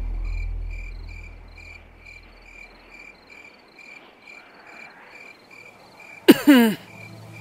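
Crickets chirping, an even pulse about twice a second, over a low hum that fades out in the first few seconds. About six seconds in, a short, loud sound with a falling pitch cuts across the chirping.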